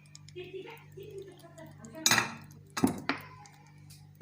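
Kitchenware clinking and knocking, with three sharp knocks about two and three seconds in.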